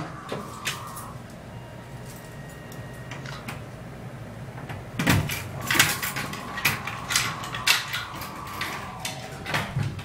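Dover elevator doors sliding shut: a steady hum, then a run of clunks and rattles in the second half. The car stays at the floor and does not move yet.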